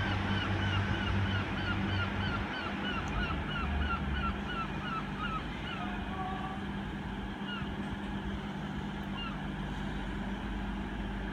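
Steady low hum of diesel train engines. Over it, a bird calls a fast run of short falling notes, about three a second, that stops about six seconds in, with a few single notes later.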